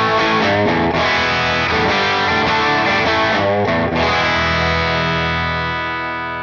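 Electric guitar (Yamaha Pacifica) played through a Gokko Salem Boost pedal with its dirt control, pushing the front of the amp into a distorted, overdriven tone. Chords are struck at the start, about a second in and about four seconds in, the last one left to ring and fade.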